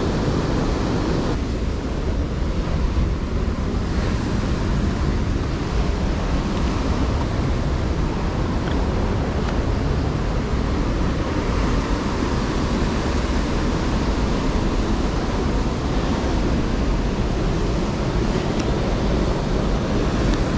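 Steady noise of heavy surf breaking on a rocky shore, mixed with wind rumbling on the microphone.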